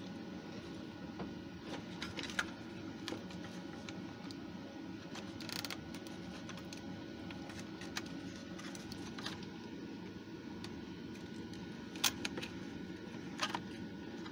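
Handling of a Stylophone's plastic case and circuit board: a few scattered light clicks and knocks of plastic parts as it is fitted back together, the sharpest about two seconds in and near the end, over a steady low background hum.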